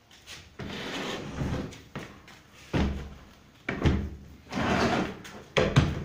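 Plastic cabinet of a Super Asia SD-550 spin dryer being shifted and turned by hand, with rough scraping and several hollow knocks.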